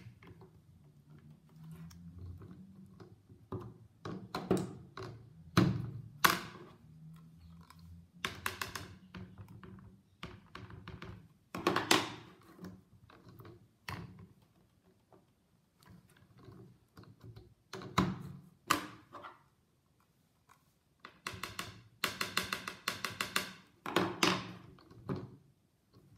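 Stamparatus stamp positioning tool being worked by hand: its clear hinged plate is lifted, moved down a notch, closed and pressed onto cardstock, with the stamp inked between rows. Scattered knocks and clicks, with a quicker run of taps near the end.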